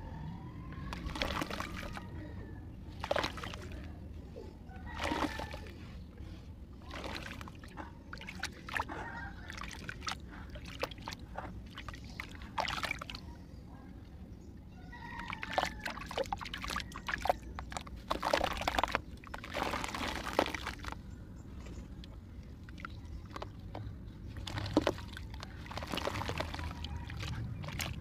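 Muddy water sloshing and splashing in a plastic basin as clay is worked into it, in irregular bursts with drips and plops, busiest about halfway through.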